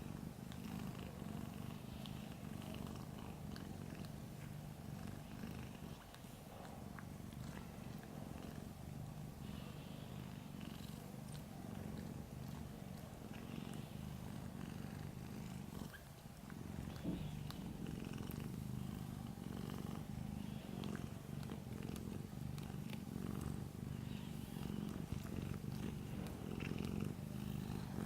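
Domestic cat purring in its sleep: a continuous low, rapidly pulsing rumble that dips briefly a couple of times.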